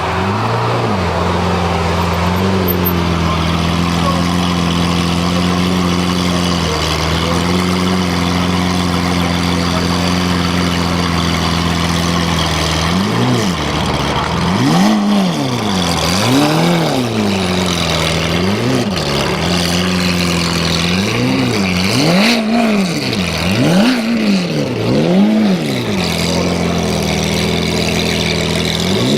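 Lamborghini engine idling steadily, then from about halfway through revved in a string of quick blips, each rising and falling in pitch, roughly one every one to two seconds.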